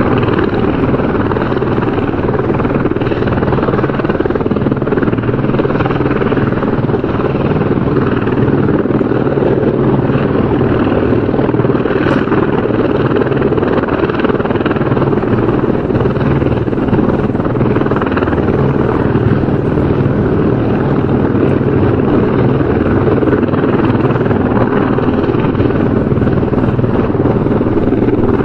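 Helicopter running steadily, its rotor making a continuous low throb.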